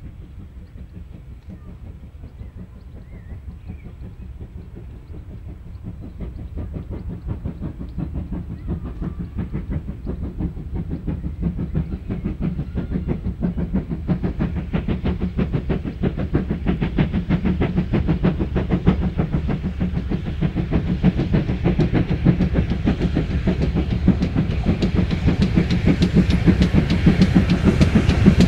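Steam locomotive hauling a passenger train, working under steam with a rapid, even run of exhaust beats over the rumble of the wheels. It grows steadily louder as it approaches.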